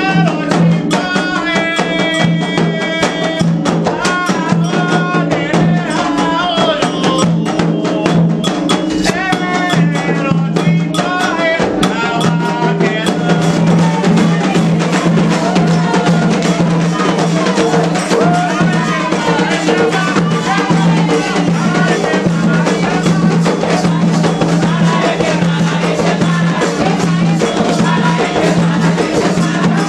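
Candomblé ritual music: drums and percussion keep a steady beat under chanted singing.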